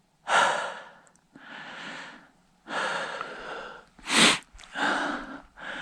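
A man breathing hard and regularly, about six heavy breaths in and out, with a short sharp sniff just after four seconds.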